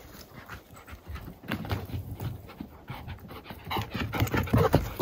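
A dog panting hard after a burst of running, getting louder near the end as it comes close.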